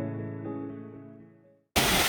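Background music holding a sustained chord that fades away to silence. Near the end a loud rushing noise cuts in suddenly.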